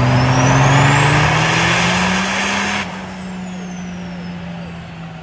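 Cummins diesel in a Dodge Ram pickup making a full-throttle pull on a chassis dyno: engine note and turbo whistle climb together for nearly three seconds. Then the throttle lifts, the rushing intake noise cuts off sharply, and the revs and turbo whistle wind slowly down.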